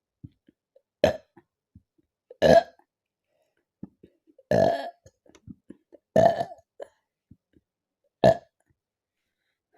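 A woman burping five times, a second or two apart; the middle burps are the longest. They are fizzy burps from drinking carbonated cola (Thums Up).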